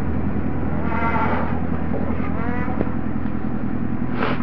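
A motor vehicle's engine running with a steady low hum. Two short wavering calls sound over it, about one and two and a half seconds in, and a brief hiss comes near the end.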